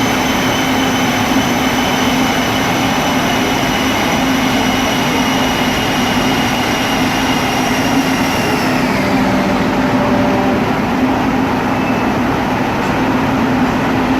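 Car running on a rolling road: a loud, steady mechanical noise with a high whine that drops in pitch about nine seconds in, under a constant low hum.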